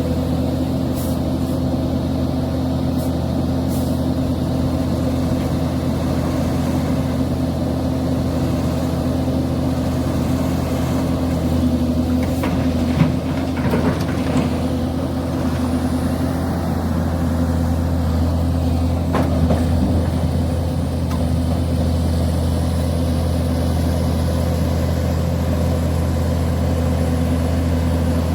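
Link-Belt excavator's diesel engine running steadily, with a few short knocks about halfway through.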